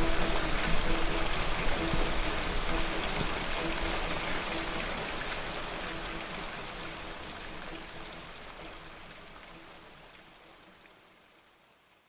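Rain falling as an even hiss with scattered raindrop ticks, with faint background music, fading out steadily to near silence by the end.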